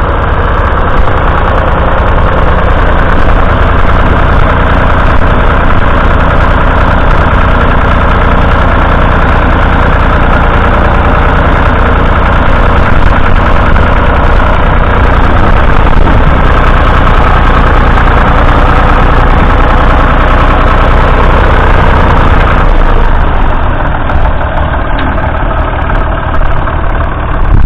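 Diesel engine of a Ford 2000 tractor running steadily. Near the end the engine note changes and the low hum eases for a few seconds.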